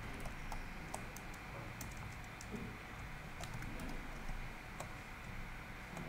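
Sparse, faint keystrokes on a computer keyboard as an IP address is typed, over a low steady background hiss.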